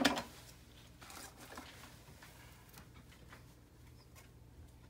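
Faint rustling and light ticks of trading cards and a pack being handled, after a sharp knock at the very start.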